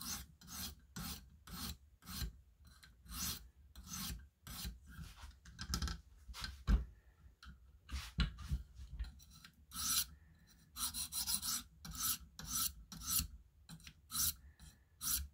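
A 300 grit stone on a KME guided sharpening system rasping back and forth along the edge of an M390 steel knife blade, in quick repeated strokes of about two a second. This is the stage that refines the edge's scratch pattern after the coarse 100 grit stone.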